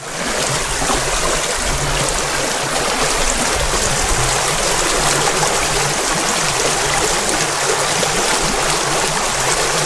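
Shallow stream running over a pebbly bed: a steady rush of flowing water.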